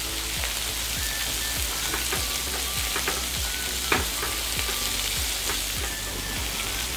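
Meat, sausages and shrimps sizzling in oil on an aluminium grill plate over a portable gas cooker, a steady hiss. Metal tongs click as they turn the sausages, most sharply about four seconds in.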